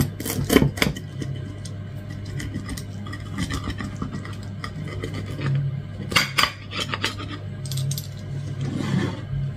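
A knife cutting through a baked pizza on a plate, the blade scraping and clinking against the plate in short strokes, loudest about half a second in and again around six seconds in, over a steady low hum.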